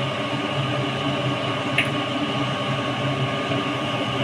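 Steady electric hum of an induction cooktop running under a pan, with a constant faint whine and hiss, and one light click about two seconds in.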